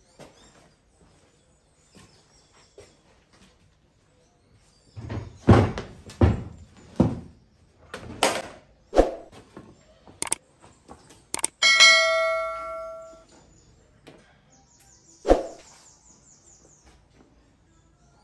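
Metal tools and parts being handled, a string of knocks and clanks. About two-thirds of the way in, one metal object is struck and rings for about a second and a half. One more knock follows near the end.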